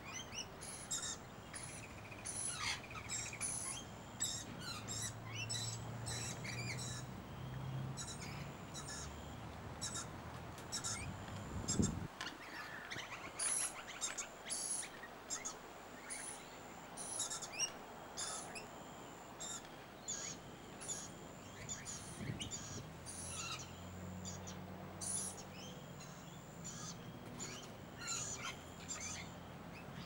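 Chirping and chattering of feeding birds, rainbow lorikeets among them: many short high-pitched calls in quick succession. A single thump comes about twelve seconds in.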